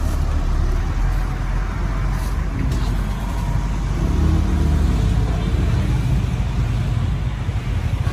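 Busy street ambience: a steady low rumble of motor traffic and engines, with faint voices in the background.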